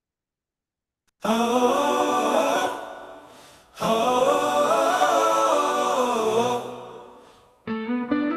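AI-generated a cappella choir humming wordlessly in two long phrases, each fading away. Near the end, plucked guitar notes come in.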